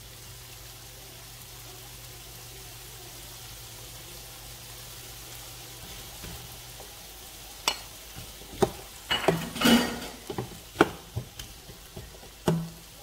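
Diced potatoes frying in oil in a nonstick pan, a steady sizzle. From about eight seconds in, a wooden spatula stirs them, with a quick run of scrapes and knocks against the pan.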